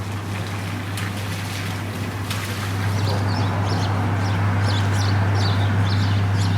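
Outdoor ambience with a steady low engine hum, like a motor idling. Small birds chirp repeatedly over it from about halfway in.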